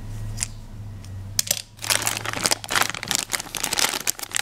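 Clear plastic packaging bag crinkling and rustling as hands handle toy cookie cutters inside it, starting about a second and a half in after a quiet start with a single click. A steady low hum runs underneath.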